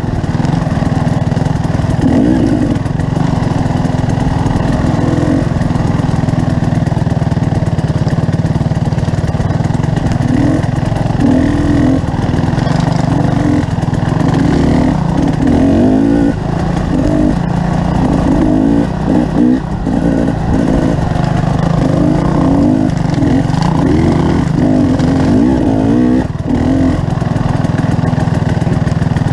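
A vehicle engine running steadily on the move, its note wavering a little as it is ridden.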